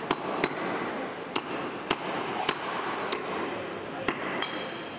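Meat cleaver chopping goat meat on a wooden log chopping block: sharp knocks, about seven, at uneven intervals of half a second to a second, over a steady background murmur of voices.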